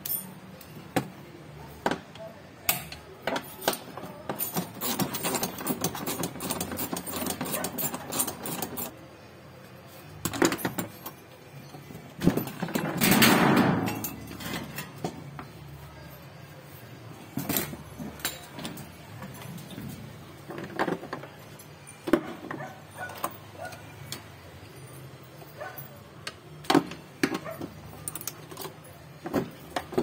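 Clicks, taps and rattles of metal parts and tools being handled as a washing machine's drive belt and motor/transmission mounting plate are taken apart, with a louder, noisier burst lasting about a second and a half near the middle.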